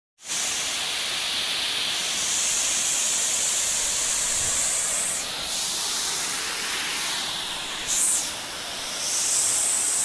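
Rushing water of a waterfall and the stream below it: a loud, steady hiss of falling water.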